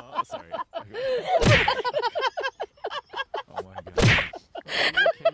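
Two loud whacking thumps about two and a half seconds apart, with quick, short, high squeaky sounds in between.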